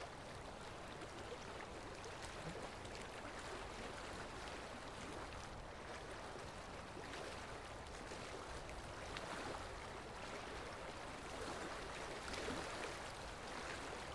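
Faint, steady rush of a flowing river.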